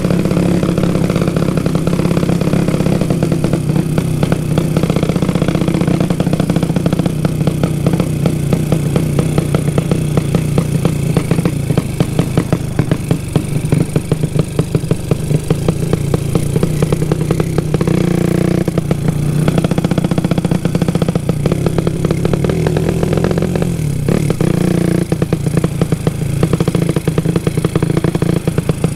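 Small carburetted motorcycle, its exhaust modified to sound like a helicopter, running loud while being ridden: a fast, steady chopping beat with a couple of brief changes in revs.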